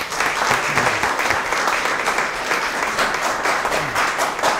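Audience applauding: many hands clapping at once, steady and dense.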